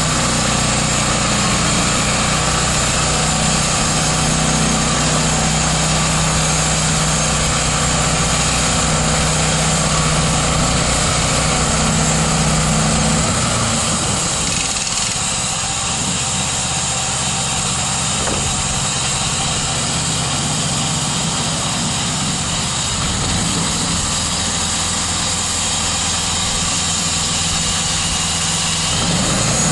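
The 13 HP Honda single-cylinder engine of a band sawmill, running steadily. About halfway through, its low steady hum drops away while the running noise carries on, and the hum comes back near the end.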